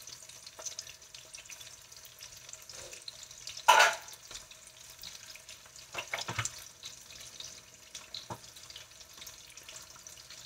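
Slices of Tocino Spam frying in oil in a nonstick pan, a steady faint sizzle and crackle. A brief loud knock comes a little under four seconds in, and smaller knocks come about six and eight seconds in.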